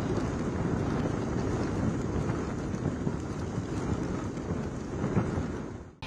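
Gusty cyclone wind buffeting the microphone, over rain and choppy water: a steady, uneven noise heaviest in the low end. It fades out quickly just before the end.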